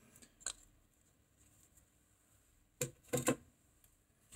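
A few light clicks and knocks as small flat metal plates, welding practice coupons, are handled and set down, with a short cluster of knocks about three seconds in.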